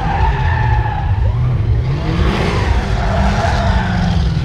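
A drifting car's engine revving hard while its rear tyres squeal and skid across asphalt. The engine note rises about two seconds in.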